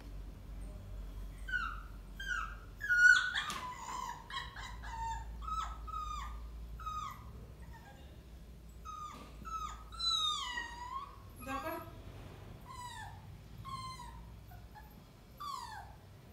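Beagle puppy whining for attention: a long series of short, high whimpers, most falling in pitch, with the loudest cry about three seconds in.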